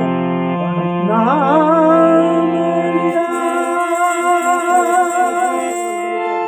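Devotional bhajan singing: a singer glides up about a second in and holds a long, wavering note on the word "naam" over steady held harmonium chords.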